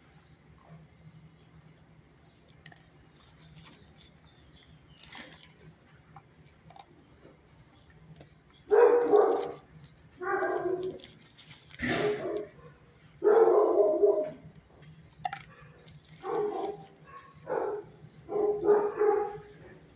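A dog barking, about eight loud barks spread over the second half, after several seconds of quiet with only a faint low hum.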